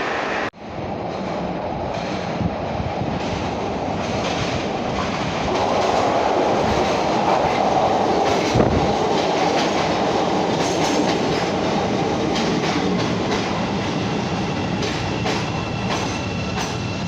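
Chicago 'L' rapid-transit train running by, a steady rumble of wheels on rail that swells about a third of the way in, with sharp clicks from the wheels crossing rail joints later on. A brief dropout half a second in breaks the sound.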